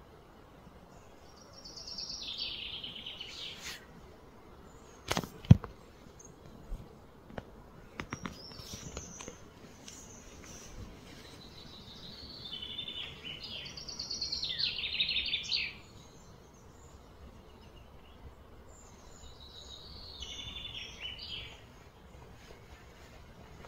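Outdoor ambience in which a bird sings three high, trilled phrases that fall in pitch, each about two seconds long, with long gaps between them. A single sharp click about five seconds in is the loudest sound, followed by a few faint ticks.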